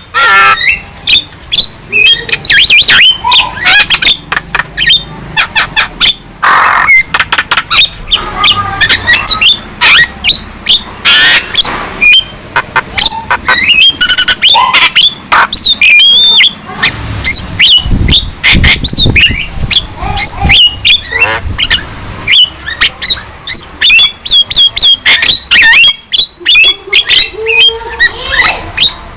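Young Javan myna singing a loud, busy run of whistles, squawks and rapid clicking notes, with a harsher, lower rasping passage about two-thirds of the way through.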